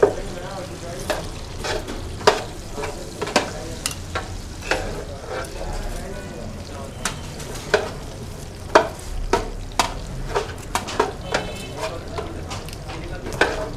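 Metal tongs clacking and scraping against a stainless-steel tray and each other as pieces of grilled chicken are picked up and moved. Sharp, irregular clicks, about one or two a second, over a steady low background hum.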